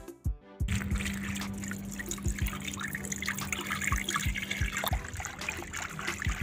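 Liquid poured in a steady stream onto a pile of flour, a splashing, trickling sound that starts about a second in, over background music with a steady beat.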